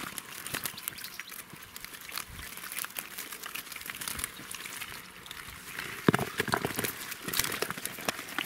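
Wire-mesh keepnet full of live fish rattling and crinkling as it is carried and tipped over a plastic bucket, a dense crackle of small clicks from the mesh and the flopping fish, with a few louder knocks about six seconds in.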